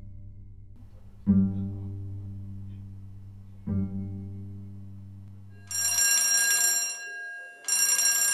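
Three plucked double-bass notes, each fading away, then an electric alarm bell rings in two bursts of just over a second each in the last third: the fire alarm going off.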